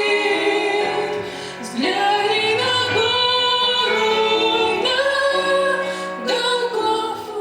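A woman singing a slow Russian Christian hymn with musical accompaniment, sliding up into long held notes several times.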